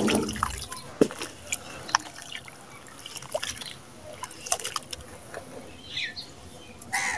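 Wet sand-cement being crumbled and squeezed by hand in a basin of water: a splash and trickle of falling wet crumbs at the start, then squelching with many small sharp clicks and crackles as the mix is squeezed and pressed into the slurry, and another splash near the end.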